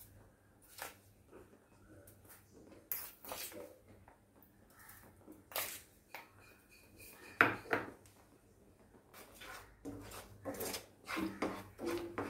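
Scattered light clicks and knocks of kitchen utensils around a frying pan: a steel bowl being handled and a wooden spatula against the pan. The loudest knock comes a little past halfway, and the knocks come more often near the end as the spatula starts stirring the thick mango pulp.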